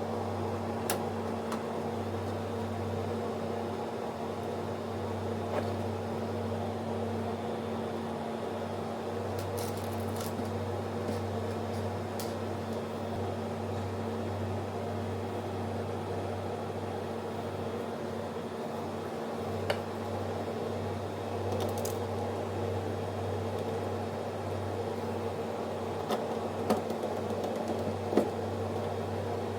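Steady mechanical hum with a low tone, broken by a few short, light clicks now and then.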